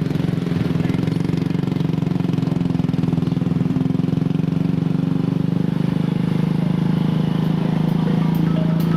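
A small engine running steadily with a fast, even pulse and a constant pitch.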